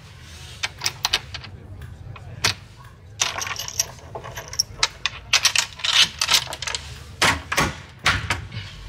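A front door's metal sliding bolts and security chain being worked in a hurry: a series of sharp metallic clicks and rattles in several quick clusters.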